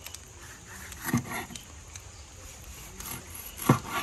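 Machete chopping through tuna onto a wooden board: a couple of heavy chops about a second in and a louder one near the end.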